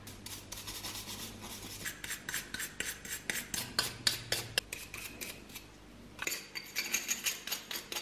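Small brass-bristle brush scrubbing wet, rusty metal coffee grinder parts: quick rasping strokes, about four a second, with a short pause about six seconds in.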